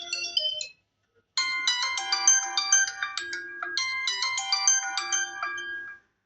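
Phone ringtones: a tune of quick, bright synthesized notes cuts off within the first second, and after a short silence another ringtone plays a fast melody for about four and a half seconds, then stops.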